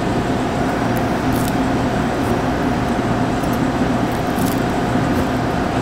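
Steady hum of a restaurant kitchen's ventilation fan, with a few faint, short scrapes of a chef's knife slicing through a cooked duck breast on a cutting board.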